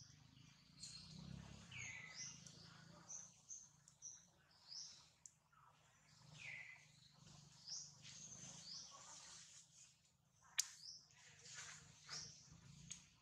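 Faint birds chirping: many short high chirps, plus a downward-sliding call every few seconds. There is a single sharp click about ten and a half seconds in.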